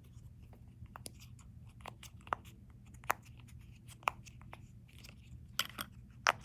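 Fidget toys handled close to the microphone: scattered clicks and taps, with sharper ones about two, three and four seconds in and a couple more near the end.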